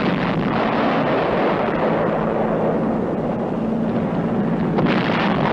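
Steady din of propeller aircraft engines and explosions from an air strike by F-51 fighter-bombers, with a fresh blast swelling about five seconds in.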